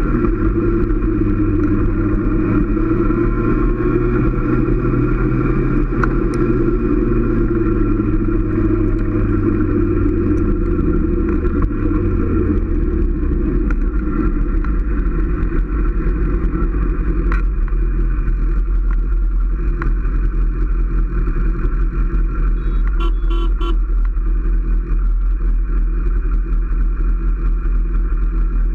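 Motorcycle engine running under way, with wind noise on the microphone. About halfway through, the engine note drops as the bike slows, then runs low and steady.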